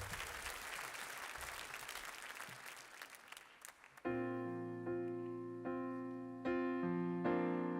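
Applause from the congregation fades away over the first few seconds. About four seconds in, a keyboard begins playing slow sustained chords, a new chord struck every second or so.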